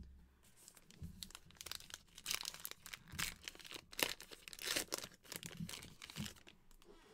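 A trading card pack being torn open by hand, its wrapper crinkling and ripping in a run of irregular crackles. A single knock comes right at the start.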